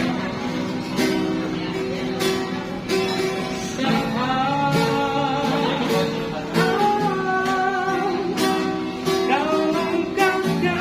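Acoustic guitar strummed in a steady rhythm, with a voice singing a gliding melodic line from about four seconds in until about nine seconds.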